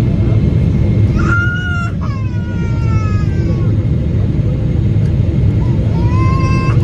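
Steady, loud cabin rumble of a Boeing 777-300ER in flight, its GE90 engines and airflow heard through the fuselage. Over it a small child cries out, once about a second in, then in a long falling wail, and again rising near the end.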